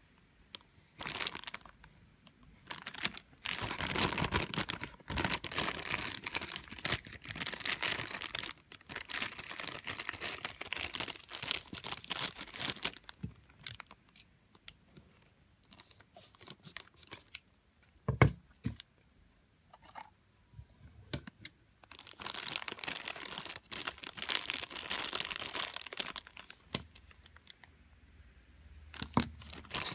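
Thin clear plastic bag crinkling and rustling as a small plastic figure is worked out of it by hand, in two long stretches with a quieter gap between. A single sharp knock in the middle of the quiet gap is the loudest sound.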